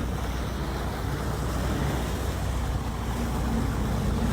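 Jet ski engine running steadily.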